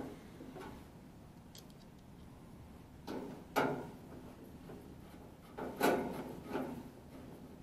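A hand screwdriver driving a screw through a small metal switch bracket into a furnace's sheet-metal back panel. It gives a few short scraping clicks, in two clusters about three seconds in and again about six seconds in.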